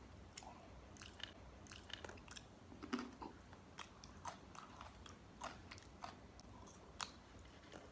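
A person chewing crispy fried food close to the microphone: irregular wet crunches and bites, the loudest about three seconds in.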